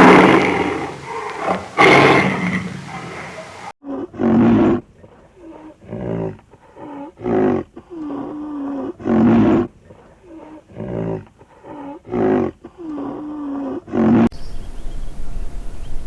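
A large animal roaring: one long roar, then after a cut a series of short, grunting roars about once a second, some carrying a low moaning tone.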